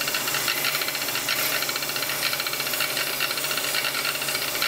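Abrasive-bristle nylon brush wheel (80 grit) spinning on an electric arbor, scrubbing surface rust off a handsaw blade. It makes a steady rasping scrub with a fast flutter over an even hum.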